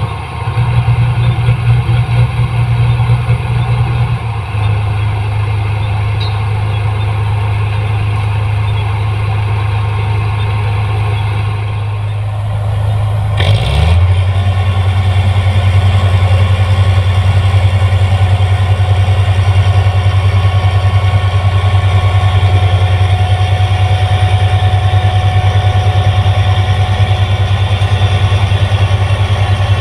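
Rice combine harvester's diesel engine running steadily. Its note shifts slightly about four seconds in, then about halfway through it glides briefly and settles into a louder, steady run.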